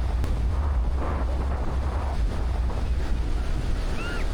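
Wind buffeting the microphone in a steady low rumble over the wash of Black Sea surf. Near the end comes a brief, high, bending call-like sound.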